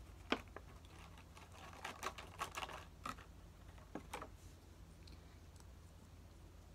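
Paper rustling and light plastic clicks as hands rummage through folded slips of paper in a clear plastic bowl and pull one out; the rustling dies down after about four seconds.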